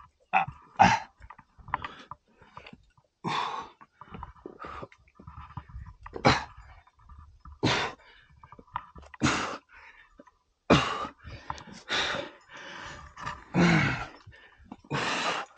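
A rock climber's hard breathing under exertion: short, forceful exhales about once a second, close to the microphone, with a voiced grunt near the end.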